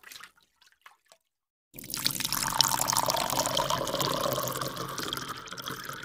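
A steady stream of running water splashing, starting after a short silence about two seconds in.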